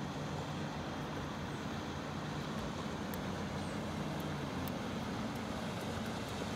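Boat engine idling with a steady low hum; its lowest note drops away about four and a half seconds in.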